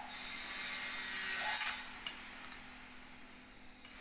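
A spoon mixing small mola carplet fish with spice paste and mustard oil in a ceramic bowl: a scraping, rubbing sound that fades about two seconds in, with a few light clicks.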